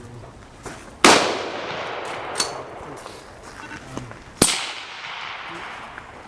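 AR-15 rifle firing two shots about three and a half seconds apart, each a sharp crack with a long echoing tail. A smaller sharp sound comes between them.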